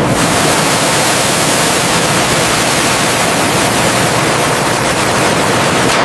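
A loud, steady rushing hiss with no rhythm or pitch.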